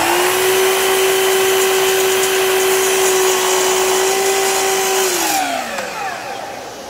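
Festool KS 120 sliding mitre saw running at full speed with its blade down in a wooden board, cutting a shallow groove. About five seconds in it is switched off and the motor winds down with a falling whine.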